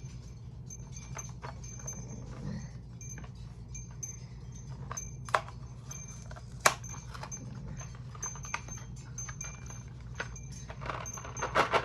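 A snack package of Mini Charleston Chews being opened and handled: scattered small clicks and crinkles, two sharper taps in the middle, and a busier flurry of rattling near the end. A steady low hum runs underneath.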